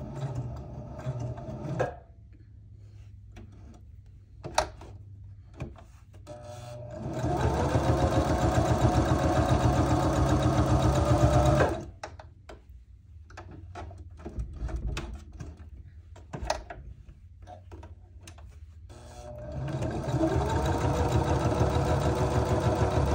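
Sewing machine stitching around the edges of a paper playing card in separate runs. One run stops about two seconds in. A longer run of about five seconds starts about seven seconds in, picks up speed, then stops sharply. Another run starts near the end. Between the runs there are small clicks.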